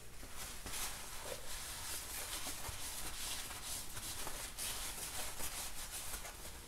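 Paper towels being rubbed over the inside of a metal motorcycle primary cover: a scratchy wiping hiss made of many quick back-and-forth strokes.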